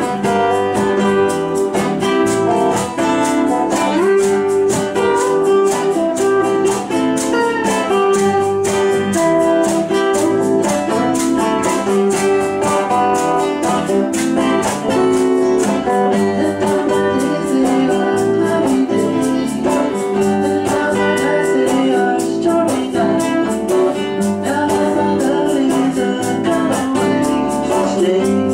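A band playing a guitar-led rock-blues song, the guitars carrying the tune.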